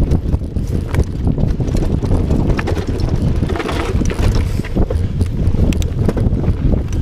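Wind buffeting an action camera's microphone mounted on a mountain bike's handlebars, over the rumble and rattle of the bike riding a rough dirt trail, with scattered clicks and knocks from the bike.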